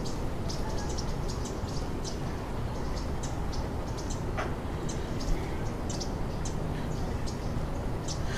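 Background ambience: a steady low rumble with short, high chirps a few times a second, like small animals calling.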